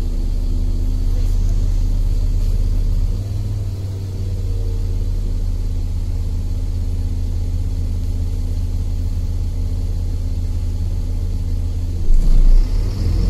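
City bus engine running with a steady low rumble, heard from inside the passenger cabin. About twelve seconds in it briefly gets louder with a low thump.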